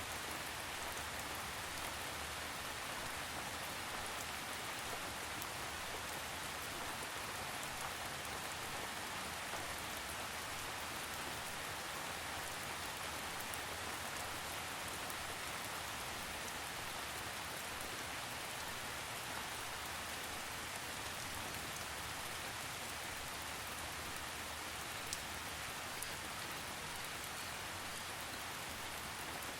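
Steady rain falling, an even hiss of drops with faint scattered ticks of single drops.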